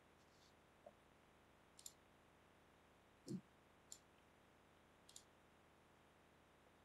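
Faint computer keyboard keystrokes: about five sparse clicks over several seconds, one of them a soft low thump, over near silence.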